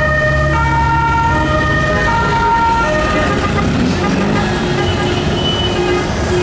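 Two-tone siren alternating between a lower and a higher note about every half second to a second, over the low rumble of small passing cars.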